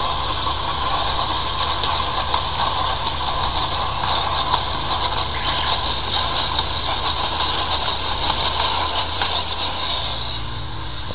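High-pressure drain-jetting water hissing loudly and steadily, over a low steady rumble; the hiss swells about four seconds in and eases off shortly before the end.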